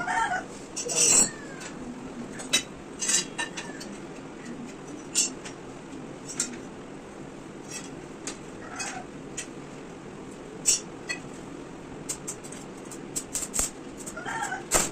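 Irregular light metallic clinks and taps, as from steel frame pieces being handled, with a few short bird calls.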